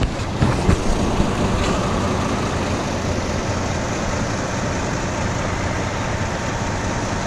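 A truck's engine running steadily, a continuous even noise with no change in pitch, with a few short knocks in the first second or so.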